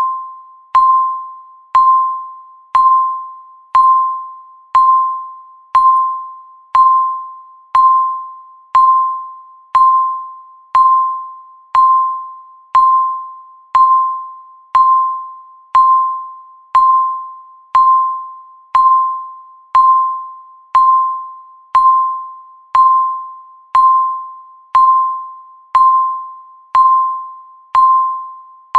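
Countdown timer's electronic tick: a bell-like ding, struck once a second, each one fading away before the next.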